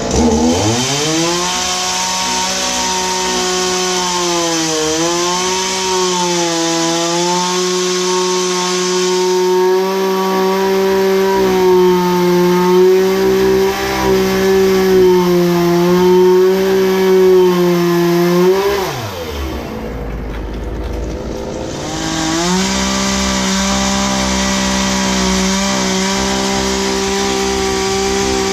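Ryobi RY3716 two-stroke gas chainsaw revving up and running at high speed while cutting up a tree. Its pitch dips briefly about five seconds in, falls off near the two-thirds point, and revs back up a few seconds later.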